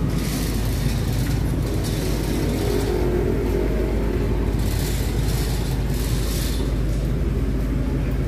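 Road traffic going past on a wet street: a steady engine rumble, with tyre hiss swelling and fading as vehicles pass.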